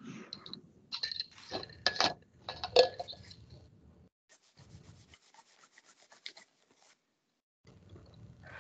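Irregular rubbing and scraping sounds with sharp clicks, then a quick run of faint, even ticks for a couple of seconds.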